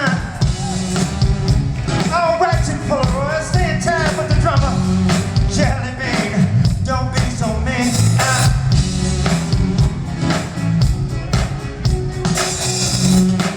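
Live funk band playing with a steady bass and drum groove, with sung or lead melodic lines over it.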